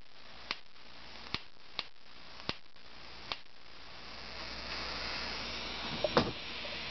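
High-voltage output of three series-wired TV flyback transformers hissing steadily while it charges a gutted CFL bulb, with sharp spark snaps every second or so over the first few seconds.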